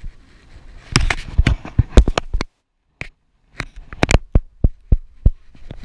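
A rapid, irregular series of sharp clicks and knocks close to the microphone, typical of handling noise on the camera. The sound cuts to dead silence for about a second midway, then the knocks start again.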